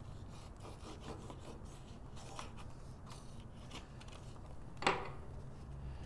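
Faint rustling and rubbing of patterned cardstock panels as they are aligned and pressed together with adhesive, with one sharper paper tap about five seconds in.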